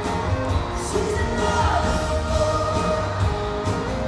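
Live country band playing with a singer's voice over it, heard through an arena's sound system.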